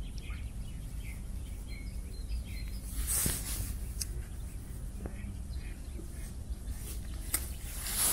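Close handling noise from unhooking a small fish and rebaiting a pole-fishing hook: a brief rustle about three seconds in and a few sharp clicks, over a steady low rumble with faint bird chirps.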